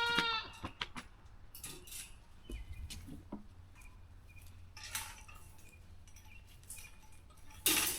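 Scattered light clinks, knocks and rustles of goats and feeding gear in a goat pen. A short high call sounds right at the start, and a sharp knock near the end is the loudest sound.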